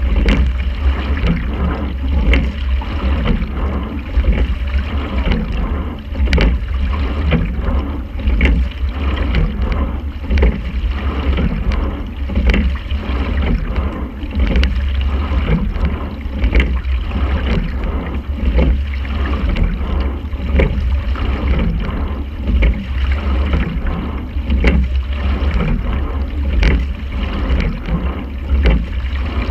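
Quadruple scull under way at racing pace: oars clunk in their oarlocks at each stroke, about one stroke every two seconds, over a steady low rumble of wind and water on the bow-mounted camera.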